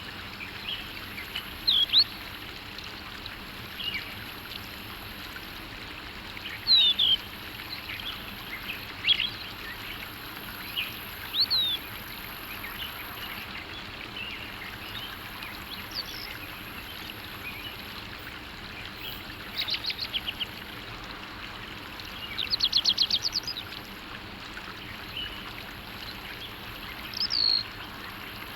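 Songbirds calling outdoors: scattered short chirps and whistled notes, with a fast trill of rapidly repeated notes a little past the middle, over a steady background hiss.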